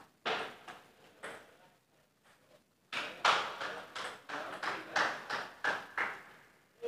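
Table tennis ball clicking off rubber paddles and the table during rallies: a few hits in the first second or so, then a quicker run of about three hits a second from about three seconds in. Each click echoes in a bare concrete room.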